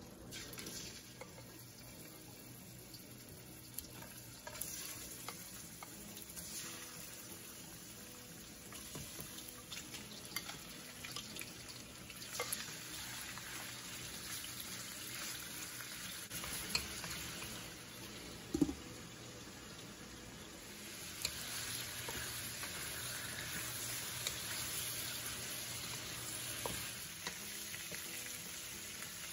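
Pork belly cubes sizzling in hot oil in a wok, with scattered short taps and clicks as pieces go in and a wooden spatula stirs them. The sizzle grows louder about two-thirds of the way through.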